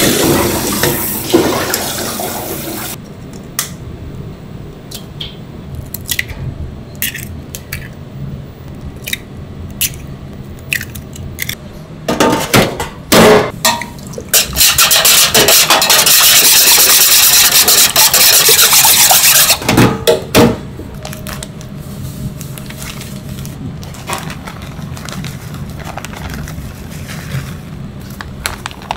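Water from a kitchen sink's pull-down sprayer splashing into a steel bowl, cutting off about three seconds in. Then a string of sharp clicks and taps, a few loud knocks, and a loud steady rush of noise for about five seconds midway.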